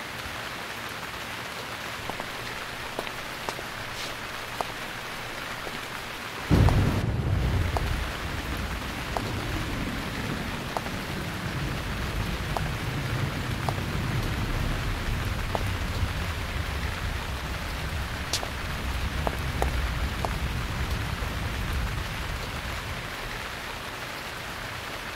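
Steady rain hiss with scattered drip ticks. About six and a half seconds in, a sudden thunderclap breaks out and rolls on as a long low rumble that slowly fades.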